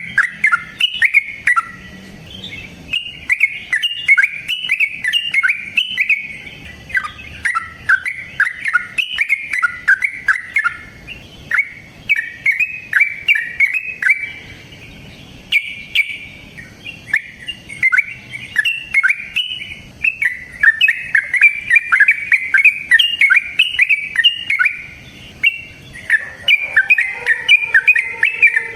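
Yellow-vented bulbul (trucukan) singing a long, rapid run of chattering, gliding notes. The song goes phrase after phrase with only brief pauses between them.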